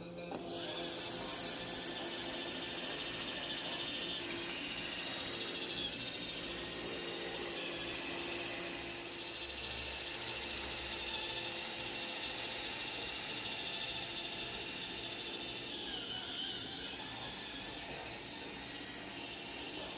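Roomba robot vacuum running steadily: a mechanical whir of its motors and brushes with a few steady high tones.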